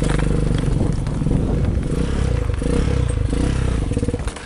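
ATV (quad bike) engine running steadily under way over rough ground, with knocks and rattles from the ride; it cuts off abruptly just before the end.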